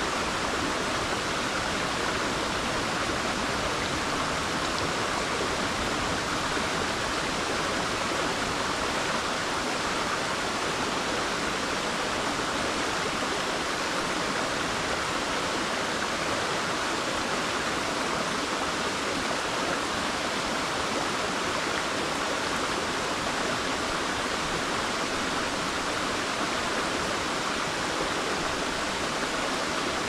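Mountain river flowing: a steady, unbroken rush of water.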